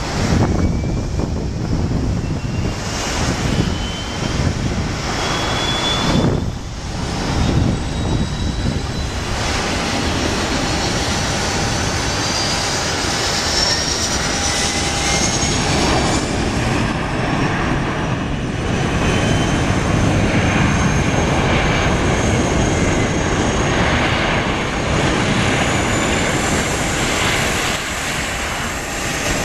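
Boeing 757-200 jet airliner touching down and rolling out: a steady jet-engine rumble with thin whines that climb slowly in pitch.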